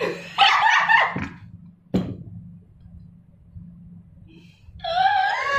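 A young woman's high-pitched laughing squeal, then a single short knock about two seconds in, and near the end a drawn-out 'ohhh' exclamation rising in pitch.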